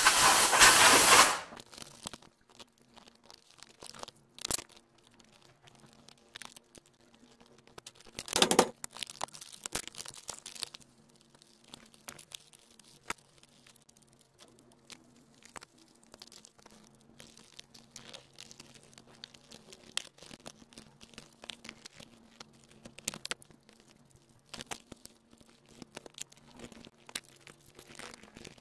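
Loud hiss of compressed air blowing dust out of a robot vacuum's exhaust vent for about a second and a half, with another short rushing burst about eight seconds in. Then scattered light clicks and knocks as the plastic housing is fitted back together and screwed down.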